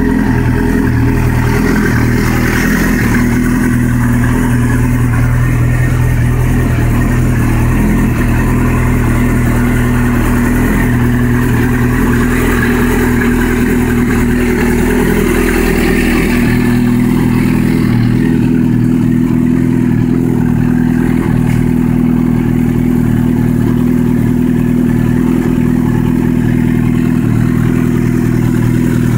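Yamaha R6's inline-four engine idling steadily through an aftermarket carbon-fibre silencer, with no revving.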